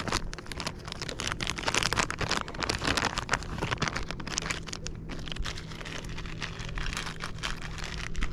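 Plastic soft-bait worm bag crinkling and crackling as it is handled, busiest in the first half.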